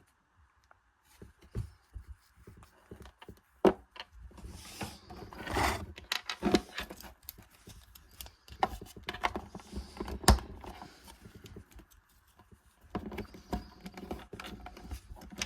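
Plastic toy parts and packaging being handled: scattered clicks, taps and brief rustles, with a couple of sharper knocks.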